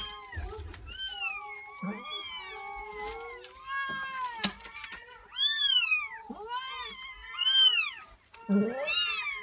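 Persian kittens mewing over and over: about eight high calls, each rising and then falling in pitch, the loudest a little past halfway. There is a short sharp click about four and a half seconds in.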